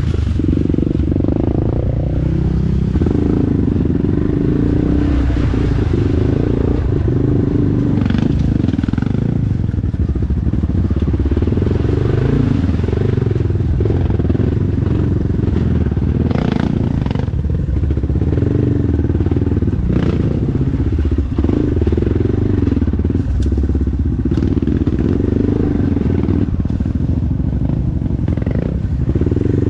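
Dirt bike engine running with the revs rising and falling under throttle, over scattered knocks and clatter from the bike working across rough trail ground.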